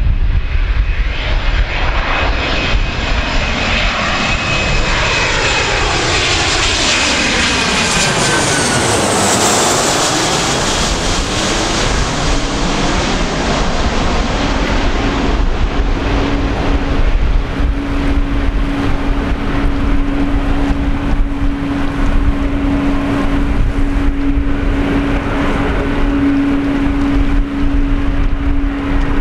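Boeing 737-400 jet airliner on final approach, its CFM56-3 turbofans running at approach power. It passes low overhead about a third of the way in, its whine dropping in pitch as it goes over, then the steady jet rumble of the plane flying away. A steady low hum joins from about halfway.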